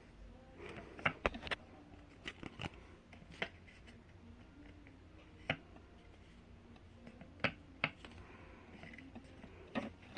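Irregular sharp clicks and taps, about ten of them, of small hard objects being handled.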